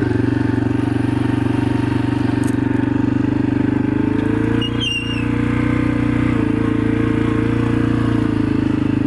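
Engine of a clutch-operated motor vehicle running steadily, its pitch shifting slightly a couple of times, with a brief high chirp about halfway through.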